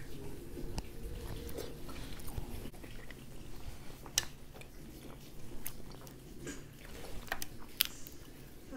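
Close-up eating sounds: chewing, with several sharp clicks and cracks from shellfish shells (mussels and crab legs) being handled and pried apart.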